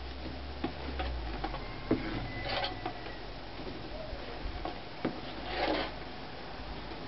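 Scattered light clicks and taps of a slotted metal skimmer against a pot as boiled carp boilies are scooped out of the water and dropped into a sieve. Two short splashy swishes, about two and a half seconds and nearly six seconds in, as the skimmer comes out of the water.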